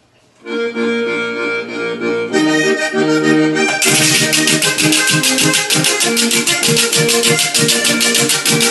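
A vallenato merengue: an accordion starts about half a second in, and the band thickens a couple of seconds later. About four seconds in, a guacharaca joins with fast, even scraping strokes of its metal fork over the ridged stick, setting the rhythm.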